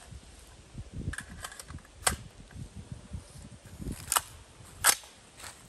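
Sharp metallic clicks and clacks from a rifle fitted with a homemade golf ball launcher being handled and readied. There is one loud click about two seconds in and two more close together near the end, with a few dull bumps between.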